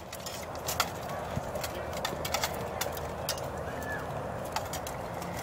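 Armoured sparring with rattan weapons: a sharp knock about a second in, then scattered lighter taps and clinks of armour and gear as the two fighters move, over steady background noise.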